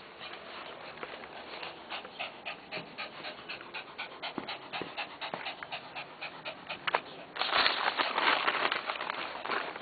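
Lhasa Apso dog panting fast, about four or five breaths a second. About three quarters of the way through, a louder burst of dense crackling starts, the dog tearing and rustling newspaper.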